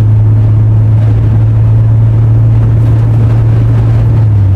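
Inside a moving car: a loud, steady low drone from the engine and road with a rushing noise over it, the drone dipping slightly in pitch near the end.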